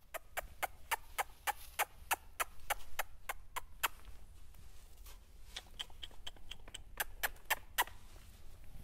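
A quick, even run of light taps, about three to four a second, then a pause and a looser run of taps later on. It is a riding crop tapping a horse's hip to ask it to step its hindquarters over.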